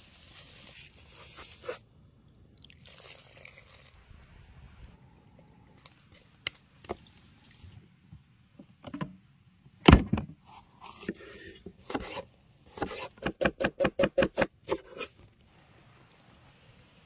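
Quick succession of food-preparation handling sounds: a soft, hissing pour of dry spices into a bowl of flour, scattered clicks and knocks, one loud knock about ten seconds in, and a rapid run of about a dozen taps a few seconds later.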